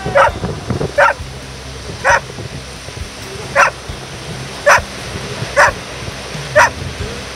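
Irish setter barking repeatedly: seven short barks, roughly one a second.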